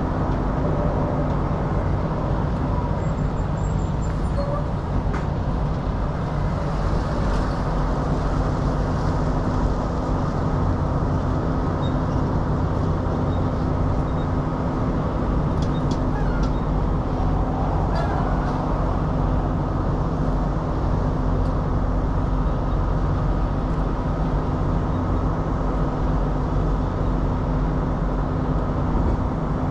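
Semi truck's diesel engine idling steadily, a low, even hum, with a few faint clicks.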